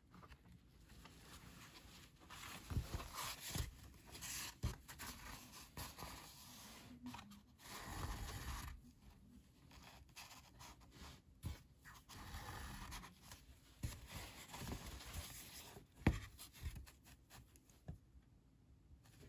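Linen thread being drawn through the stitching holes of folded cotton printmaking paper and pulled into kettle stitches at the spine: short rasping pulls and paper rustling, with a few light taps.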